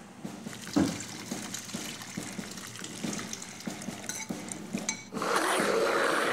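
A wet mixture is scraped and poured from a metal bowl into a blender jug, with small clicks and knocks and one louder knock about a second in. About five seconds in, the blender motor switches on and runs steadily, churning a thick paste.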